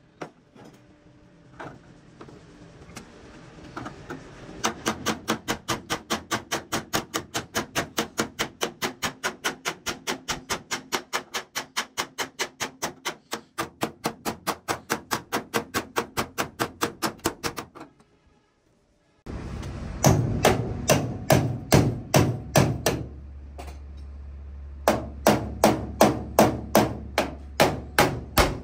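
Hammer beating a truck cabin's sheet-metal panel: rapid, even blows at about four a second. They stop briefly twice, and a low steady hum runs under the later blows.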